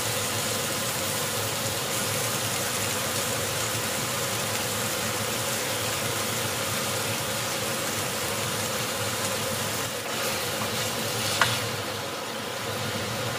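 Steady, even hiss with a faint hum under it from a stainless steel pot of beef cooking on a gas stove as raw beef chunks are dropped in. A single light knock near the end, as a wooden spoon starts stirring in the pot.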